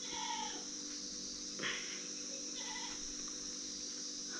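Steady high-pitched chirring of insects, with a faint low hum beneath. A soft tap sounds about one and a half seconds in, and a couple of short faint chirps are heard near the start and after the tap.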